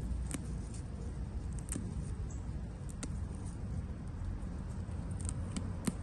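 Coriander (cilantro) stems being pinched and pulled from the soil by hand: a handful of short, crisp snaps and leaf rustles, the loudest near the end, over a steady low rumble.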